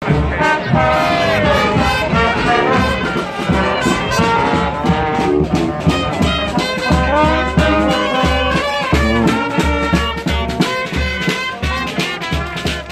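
Brass-led music with a swinging beat and a steady pulsing bass line.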